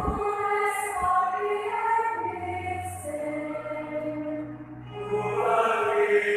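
Choir singing a slow liturgical chant in long held notes.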